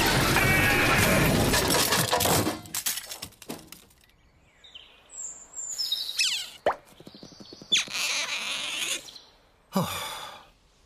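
Cartoon car skid noise that stops about two and a half seconds in. It is followed by a string of short comic sound effects: falling whistle-like glides, a sharp click, and a thud near the end.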